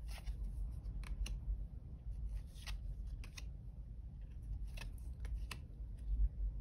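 Tarot cards being handled and turned over: faint, irregular light clicks and brushes of card on card, about one every half second to second, over a low room hum.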